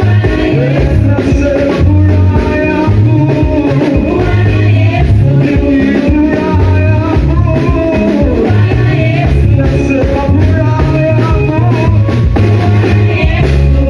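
Loud music with singing over a strong, repeating bass line.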